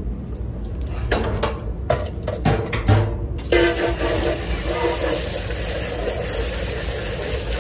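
Kitchen clatter of utensils and cookware with several sharp knocks, then about halfway through a loud steady hiss starts suddenly.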